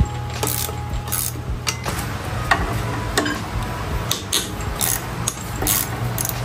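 Hand tools and metal motorcycle parts clinking and clicking in irregular knocks during front-end disassembly, over a steady low hum.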